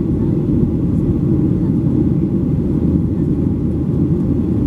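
Steady low roar inside the cabin of a Boeing 737-800 in flight: its CFM56-7B turbofan engines and the airflow over the fuselage, unchanging throughout.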